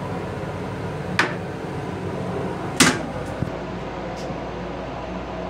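Plastic toilet seat and lid of a Metro-North M8 railcar toilet being lowered shut: two clacks about a second and a half apart, the second louder, over the steady hum of the railcar.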